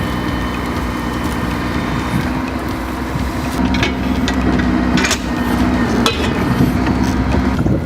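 Mercedes Actros logging truck's diesel engine running steadily, with a few sharp clanks over it in the second half.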